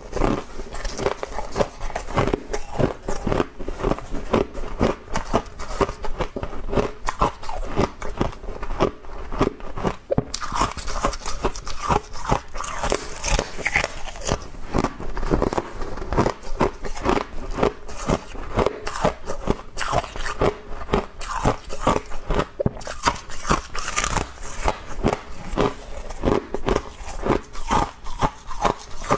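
Close-up crunching and chewing of frost from a humidifier, with rapid irregular bites throughout.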